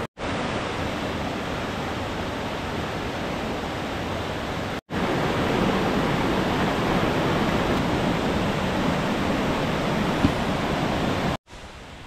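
Steady rush of a small mountain waterfall cascading into a rock pool, broken by a brief dropout about five seconds in. Near the end it cuts off to much quieter forest ambience.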